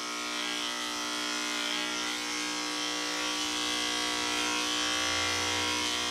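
Electric pet grooming clipper with a comb attachment humming steadily as it shaves through a dog's thick coat against the grain; a deeper hum joins about five seconds in.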